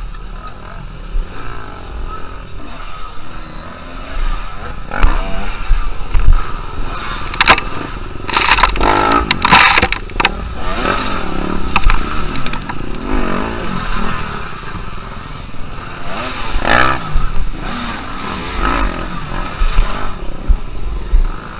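Enduro dirt-bike engines revving in uneven bursts as several bikes pick their way over a rock section, the nearest one surging hardest in the middle stretch, with scraping and clatter from the rocks.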